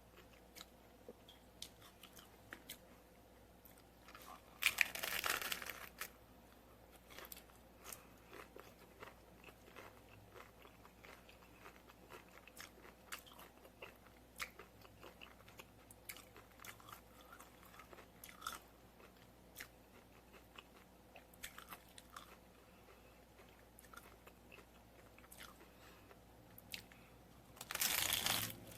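Bites into a crunchy hard-shell taco, with the shell crackling loudly, then quiet chewing and mouth clicks. A second loud crunching bite comes near the end.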